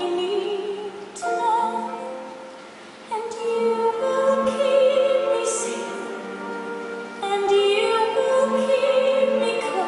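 A woman singing a slow musical-theatre ballad in held, sustained phrases, accompanied by an orchestra.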